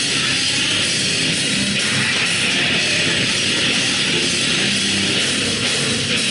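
A rock band playing loud, heavy music live, with electric guitar and drums in a steady, dense wall of sound.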